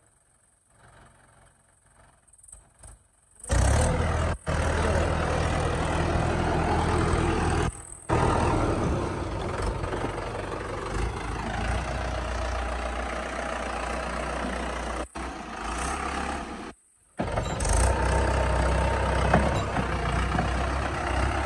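Mahindra 585 DI XP Plus tractor's four-cylinder diesel engine running steadily as the tractor drives with a super seeder lifted on its rear hitch. It comes in loud about three and a half seconds in, with a few brief breaks.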